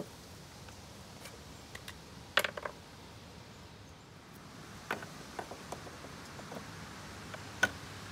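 Scattered light clicks and taps of the new gimbal bearing and its metal case being handled and seated by hand in the gimbal housing bore of a Volvo Penta SX sterndrive: a short cluster about two and a half seconds in, a few more around five seconds, and one sharp click near the end.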